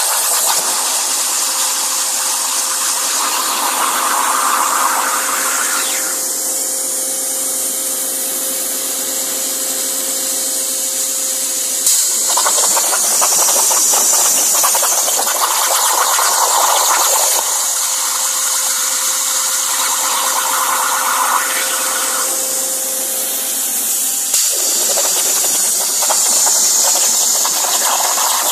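Plasma cutter cutting on a CNC table: a steady, loud hiss that shifts in character through the cut, with a sharp click about 12 seconds in and again about 24 seconds in.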